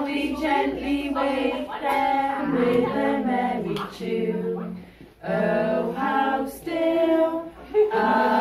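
A group of women and young children singing a slow nursery song together in held, drawn-out phrases, with a short break a little past halfway.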